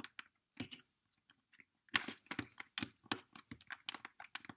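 Plastic LEGO pieces clicking and clattering as they are handled and pressed onto a build. There are a few scattered clicks at first, then a rapid run of them from about halfway in.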